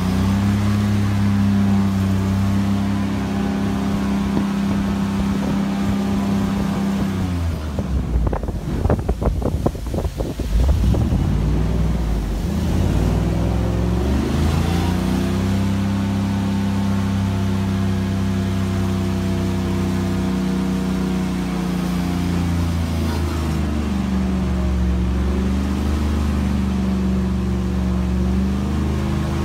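Small aluminium boat's motor running steadily under way. About eight seconds in it throttles back, its pitch dropping and the sound going choppy and uneven for a few seconds, then it speeds up again and runs steady, with a brief slight dip in pitch near the end.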